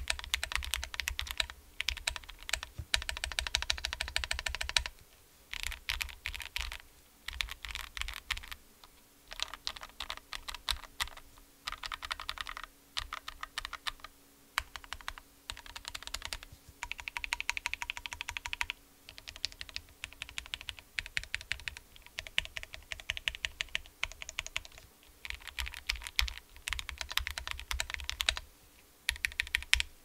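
Typing on a Megalodon Volador 75 gasket-mount mechanical keyboard: quick runs of keystrokes in bursts of a second or two, with short pauses between them.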